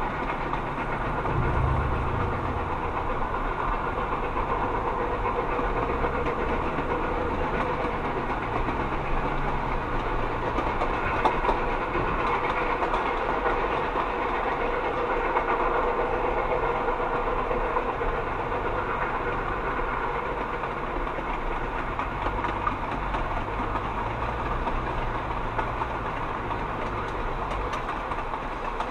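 Passenger train coaches rolling along the rails beside a moving car, heard from inside the car mixed with the car's steady road noise.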